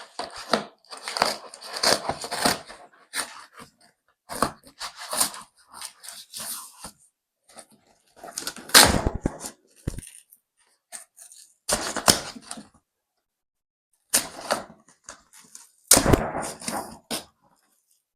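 Cardboard box and packaging around a small safe being pulled at and torn by hand, without a cutter: bursts of rustling, crackling and knocks with short pauses between them, the loudest about nine seconds in.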